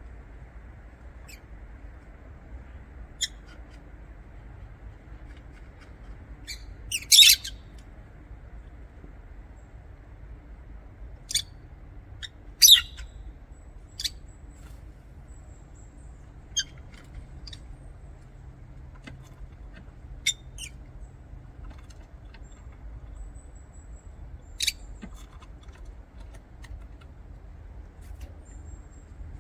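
Lovebirds giving short, high-pitched chirps and squeaks, one at a time every few seconds at irregular intervals, two of them much louder than the rest. A faint steady low hum lies underneath.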